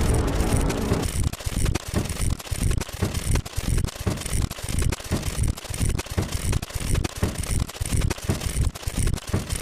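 Fast, irregular clicking and clacking sound effects, several clicks a second, like a rapidly running mechanical counter. A short ringing tone sounds at the very start.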